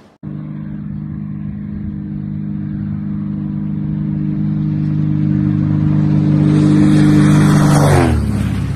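Small propeller plane's engine droning on a low approach, growing steadily louder, then dropping sharply in pitch about eight seconds in as it passes close by.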